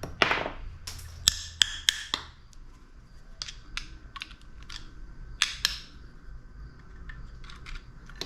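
Sharp clicks and clinks of metal tools and motor parts being handled while a pressure washer motor is taken apart, about a dozen in all, most of them in the first two seconds.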